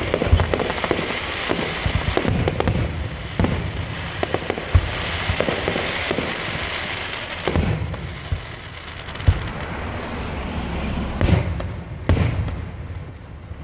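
Aerial firework shells bursting in a display, many deep bangs in quick succession with a steady crackling hiss between them. After about eight seconds the bangs thin out to a few single booms.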